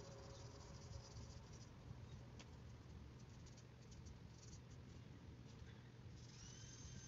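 Near silence: faint hiss in a gap in the background music, with the last of one passage fading out in the first second or so and a new held high tone coming in about six seconds in.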